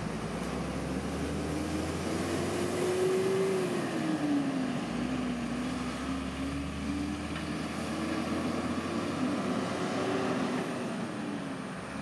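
Road traffic: buses and cars passing, with an engine hum that rises and falls in pitch. It is loudest about three to four seconds in.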